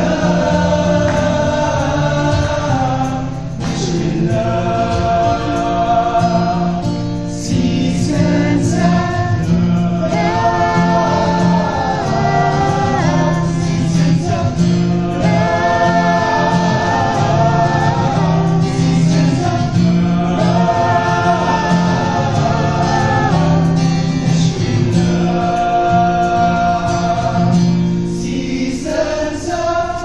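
Music: a group of young men singing together in harmony, live into microphones, several voices moving together over a steady low part.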